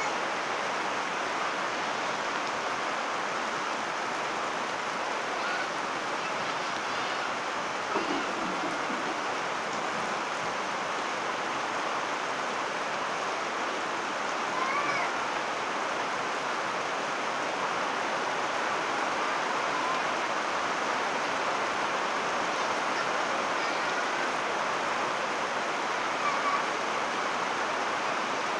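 Heavy rain pouring onto shallow floodwater: a dense, steady hiss. A few faint short gliding tones stand out briefly, about eight seconds in and again about fifteen seconds in.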